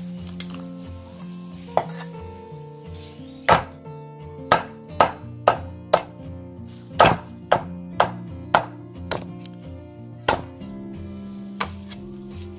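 Meat cleaver chopping a boiled chicken on a wooden chopping board: about a dozen sharp chops, coming about two a second in the middle and more sparsely at the start and end, over background music.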